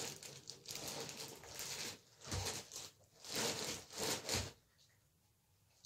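Crochet hook and cotton yarn rubbing as single crochet stitches are worked, a run of soft scratchy rustles that stop about three-quarters of the way through.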